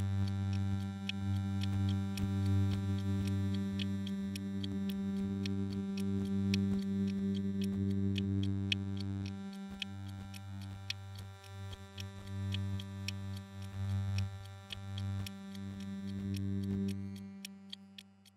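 Electronic soundtrack: a sustained low synthesizer drone with scattered clicks and ticks over it. It breaks off briefly about halfway through and fades out near the end.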